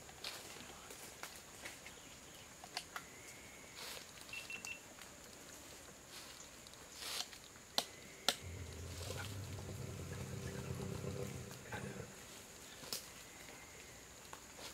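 Scattered clicks and knocks of a GPS tracking collar being handled and fastened around an elephant's neck, with a low rumble lasting about three seconds past the middle.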